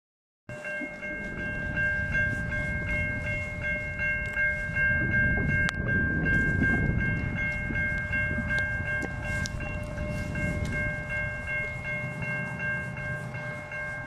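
Railway crossing warning bell ringing in a rapid, even rhythm, the signal of an activated crossing with gates down and lights flashing. Wind buffets the microphone underneath.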